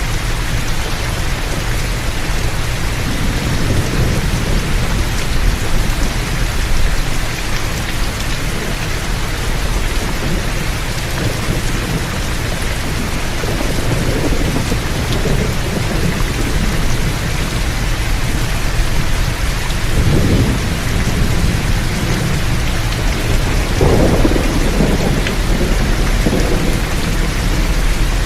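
Heavy rain pouring down steadily, with several low rumbles of thunder that swell and fade through it, the strongest a little before the end.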